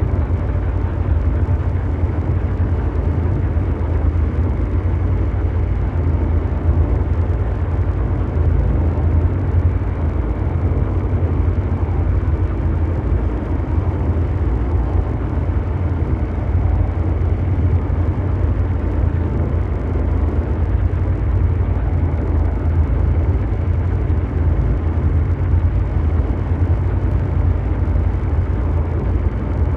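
Continuous mechanical drone noise: a steady, deep rumble with a fainter hiss above it, unchanging throughout.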